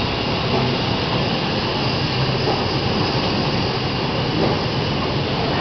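Paper bag making machine running, a steady, even mechanical noise with a faint low hum.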